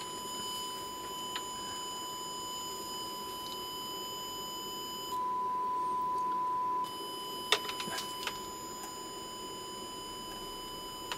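Steady 1 kHz sine test tone from a TC Electronic Fireworx effects processor's output, buzzy with distortion. For about a second and a half in the middle it turns clean and louder, as the probe touches a particular spot on the board, then goes back to distorted. A few light clicks follow from the probe; the owner suspects a ground fault.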